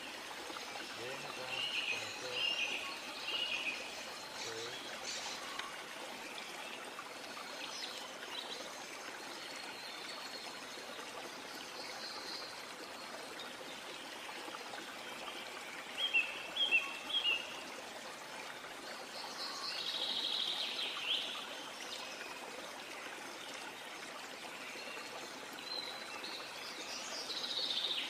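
Outdoor nature ambience: small birds chirping in short bursts every few seconds over a steady rushing background noise. A quick run of sharp chirps sounds about halfway through.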